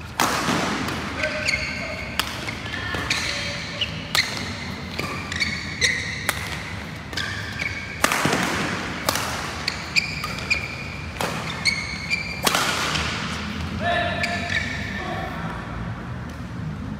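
Badminton rackets striking the shuttlecock in a long rally, a sharp crack roughly once a second, with court shoes squeaking on the floor between strokes.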